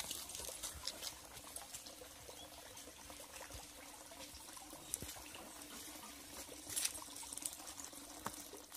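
Faint trickling water, with a few light clicks and ticks over it.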